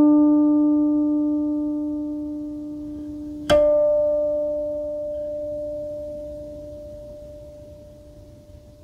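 Guqin (jiuxiao-style seven-string zither) ringing out. A note plucked just before dies away slowly, then one more note is plucked about three and a half seconds in and left to ring and fade: the closing notes of the piece.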